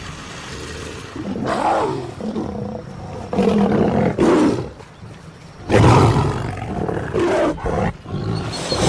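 Lions roaring and snarling in several loud outbursts, each lasting about a second.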